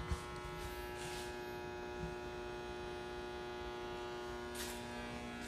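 A steady electrical mains hum with a buzzing edge: several steady pitches layered together, unchanging throughout.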